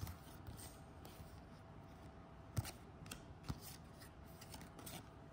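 Basketball trading cards being flipped through by hand, one slid behind another: faint soft clicks and rubbing of card on card, with two sharper snaps about two and a half and three and a half seconds in.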